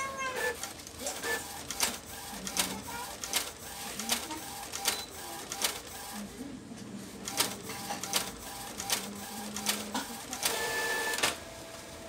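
Epson L1300 ink-tank printer printing a test page after a paper-jam repair: the print-head carriage runs back and forth, with a sharp click about every three-quarters of a second as the paper is stepped through. A brief louder pitched sound comes near the end.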